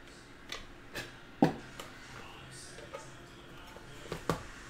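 Clear plastic card cases being handled and set down, making a few sharp clicks and taps. The loudest is about one and a half seconds in, with two more close together near the end.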